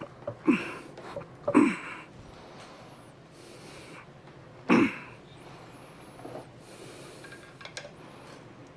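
A man breathing out hard three times in short, heavy puffs after lifting a heavy hub assembly.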